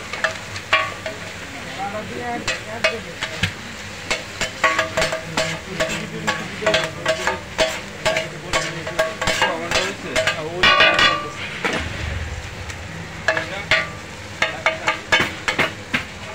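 Metal spatulas clanging and scraping on a flat metal griddle in a quick, irregular rhythm as chicken and onions are chopped and tossed, over the steady sizzle of frying. A louder flurry of clanging comes about two-thirds of the way through.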